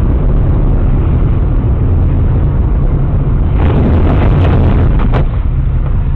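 Loud, steady low rumble of a car driving, picked up by a dashcam mic inside the cabin. About four to five seconds in it turns rougher, with a couple of sharp knocks.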